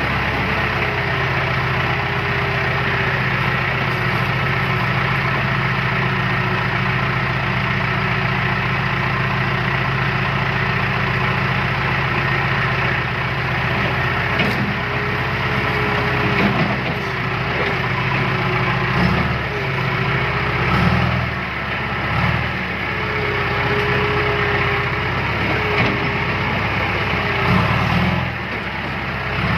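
Heavy diesel machinery engine running steadily, with its note dipping and surging a few times in the second half as the load or throttle changes. A thin wavering whine rides above the engine.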